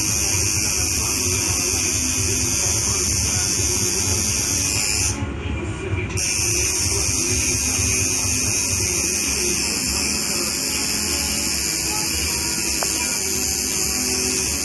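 Coil tattoo machine buzzing steadily while inking skin, pausing for about a second around five seconds in, then running on.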